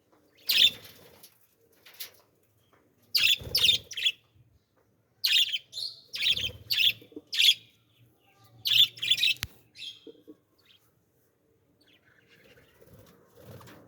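Birds chirping: loud, short, high calls in clusters of two or three, with pauses of a second or two between them.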